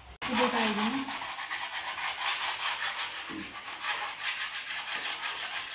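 A plastered masonry wall being sanded by hand, rasping in steady back-and-forth strokes a few times a second. This is wall prep: old, flaking paint and plaster are rubbed off before putty goes on.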